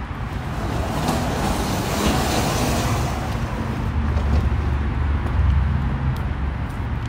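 A motor vehicle passing: a low, steady engine hum with a swell of rushing noise about two to three seconds in.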